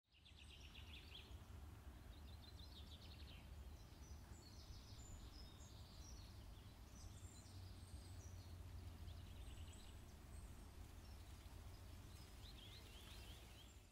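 Faint birdsong: repeated short trills and chirps over a low, steady background rumble.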